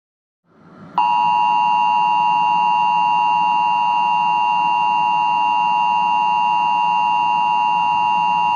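Emergency Alert System attention signal: the two-tone 853 Hz and 960 Hz alert tone, starting abruptly about a second in and held steady for about eight seconds over a background hiss.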